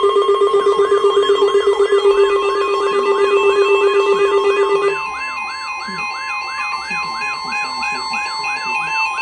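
Several emergency alert tones sounding at once from weather radio and EAS alert equipment: a warbling, siren-like sweep repeating about three times a second over steady alert tones, with a low, rapidly pulsing tone that stops about five seconds in.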